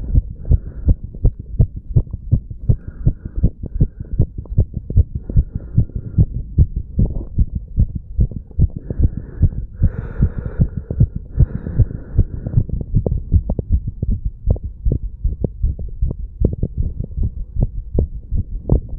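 Human heartbeat recorded against the chest over the heart valve areas: a quick, even run of deep lub-dub thumps. Around ten seconds in, a brief hiss of rubbing noise sits over the beats.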